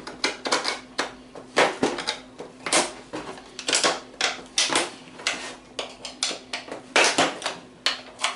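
Steel ammunition spam can being cut open with its supplied lever-type opener: a run of sharp, irregular metallic clicks and crunches, several a second, as the tool bites its way along the sheet-steel lid.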